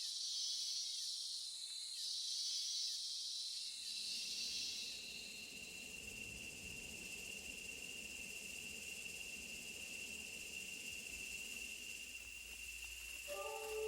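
Rainforest insects calling: a pulsing, hissy buzz in three swells over the first few seconds, then a single steady high-pitched drone.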